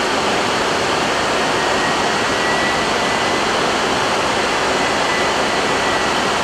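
Steady rushing air noise on an Airbus A320 flight deck in the climb after takeoff, with a faint high tone in the middle.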